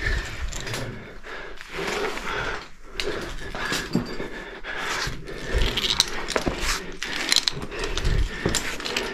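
Heavy breathing of a caver climbing a rope on an ascender, mixed with scrapes and clicks of the climbing gear against the rope and rock.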